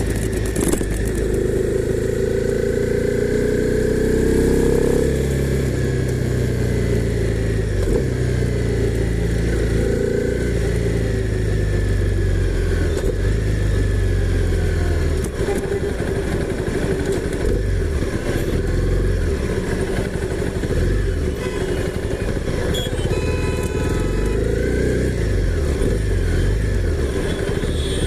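Honda CB300R's single-cylinder engine running under throttle. Its pitch rises and falls several times as the revs build and drop.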